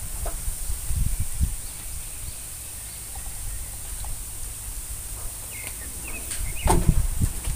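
Kitchen items being handled on a wooden floor: low knocks and bumps in the first couple of seconds, then a quieter stretch. Near the end come a few short, faint chirps and one sharp click, the loudest sound.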